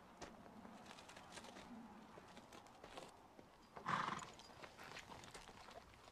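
Faint, scattered clicks and knocks, with a short louder rasping burst about four seconds in.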